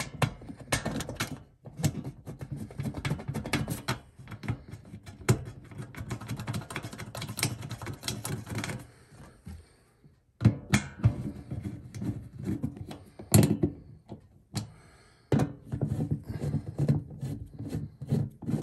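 Sheet-metal furnace door panel being worked into place: a busy run of irregular knocks, thunks and rattles, broken by two brief pauses, as a stiff, cantankerous top door is refitted.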